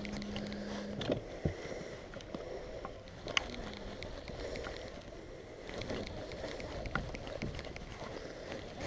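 Steady low wind-and-water noise on a small fishing boat, with a few light clicks and knocks from the rod and reel being handled. A faint steady hum stops about a second in.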